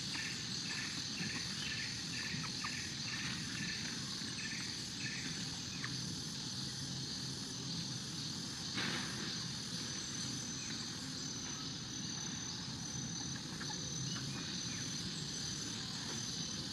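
Forest insects buzzing in a steady high drone, with a faint chirp repeating about two or three times a second in the first few seconds and a single click about halfway through.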